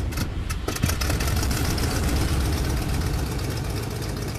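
Sound effect for an animated logo intro: a loud engine-like rumble, with a quick run of sharp clicks in the first second, easing off slightly near the end.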